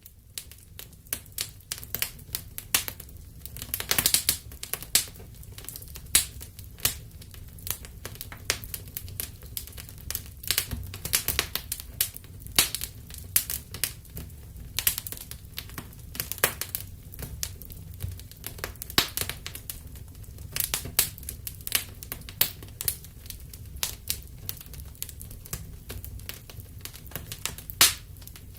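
Wood fire in a fireplace crackling, with irregular sharp pops and snaps several times a second over a low steady rumble of the burning.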